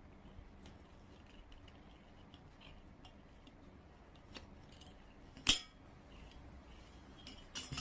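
Faint scattered clicks and clinks of small hard objects, one sharp crack about five and a half seconds in, and a short clatter near the end.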